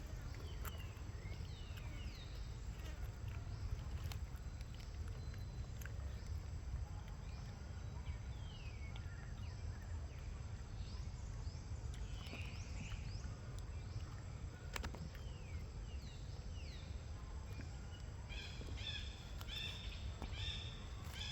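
Short, high animal chirps, each sweeping downward, scattered over a steady low outdoor rumble; near the end the chirps come quickly in a rapid run.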